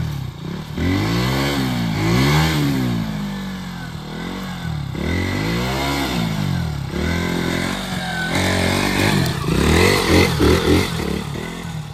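Motorcycle engine revved up and down over and over as the bike struggles for grip climbing over a pile of cut branches, the revs coming in quicker, choppier blips near the end.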